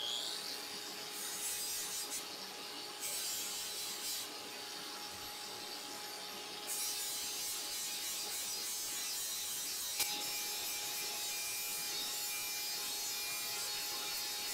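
Angle grinder with a sanding disc running at a steady pitch while sanding beech wood. The rasping of the disc on the wood swells and eases as it is pressed on and moved along. There is a sharp click about ten seconds in.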